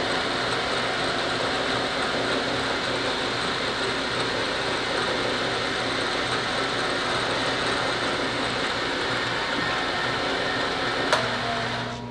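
Bridgeport milling machine's spindle running a small drill bit down into a wooden gunstock: a steady whirring of the bit cutting wood. There is a click near the end, and then the sound drops as the bit comes out of the hole.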